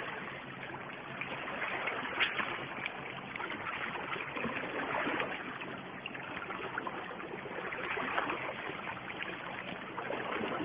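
Small sea waves washing and lapping against shoreline rocks, a steady wash that swells and eases every few seconds.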